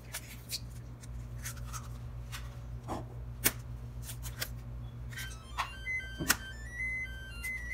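Eggs cracked against the rim of a stainless-steel stand-mixer bowl: a string of sharp taps and cracks, the loudest about three and a half seconds in and again just after six seconds. From about five seconds in, a simple melody of short high beeping notes plays in the background over a steady low hum.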